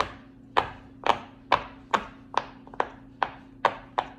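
Silicone pop-it fidget toy having its bubbles pressed one after another: a regular run of sharp pops, about two and a half a second.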